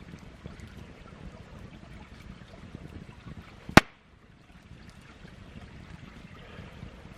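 Wood campfire crackling with many small irregular ticks, and one sharp loud pop a little past halfway.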